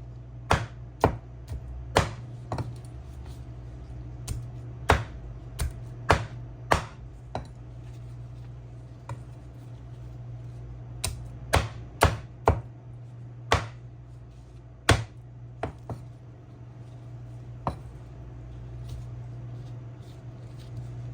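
Knife chopping on a cutting board in irregular strokes, about twenty sharp knocks in uneven clusters with pauses between. A steady low hum runs underneath.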